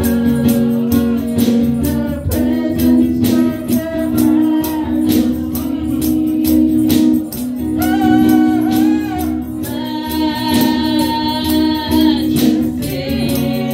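Live gospel worship song: a woman sings lead through a microphone, with backing singers, over held accompaniment chords and an even percussive beat. Her voice rises and is strongest in the second half.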